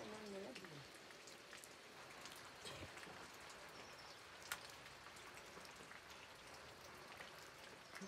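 Faint light rain: a steady soft patter with scattered drops ticking.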